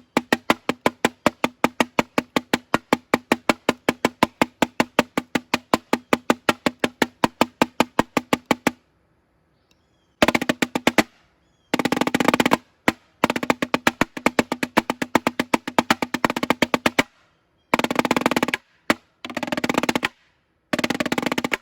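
Snare drum: a steady run of single strokes, about six a second, for the first nine seconds, then, after a short pause, fast rolls in bursts lasting from under a second to several seconds, with short gaps between.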